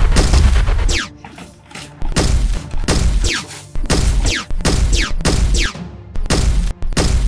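Bursts of dubbed-in gunfire sound effects, several shots with quick falling whistles, over action film music with a heavy bass.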